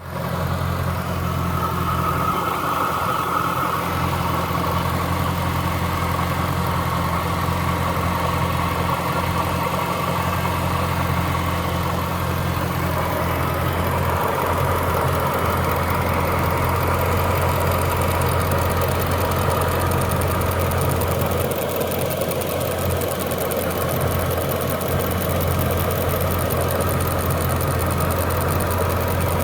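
Jaguar S-type R's supercharged 4.2-litre V8 idling steadily with a tapping noise, which the owner suspects comes from the supercharger bearings.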